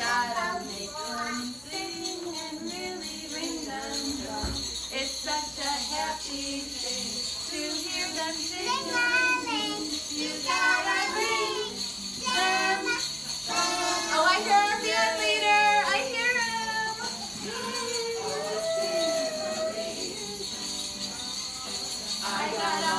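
Jingle bells shaking continuously under singing voices, a melody with wavering held notes that is strongest in the middle stretch.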